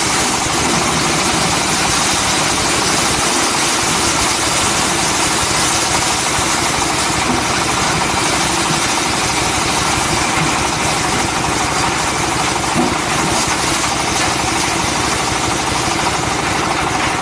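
Tractor engine running steadily, driving a PTO-powered corn husker-sheller, whose mechanical noise runs over the engine's sound.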